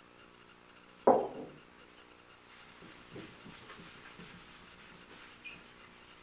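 A single sharp knock about a second in, as a small glass jar of shellac is set down on the wooden workbench. Then a paper towel rubs shellac onto the cedar box: a soft, uneven rubbing.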